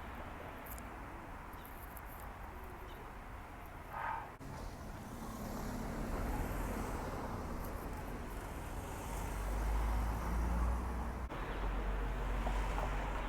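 Downtown city street ambience: steady traffic rumble and general street noise, changing abruptly twice where short clips are joined.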